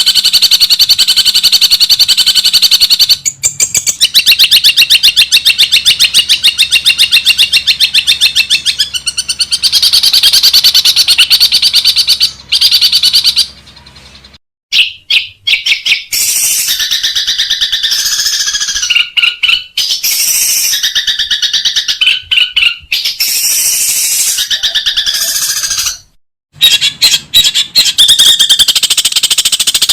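Long-tailed shrike (cendet) birdsong: long runs of fast, high-pitched chattering trills. These break off abruptly twice into a moment of silence, with shorter separate call phrases in between.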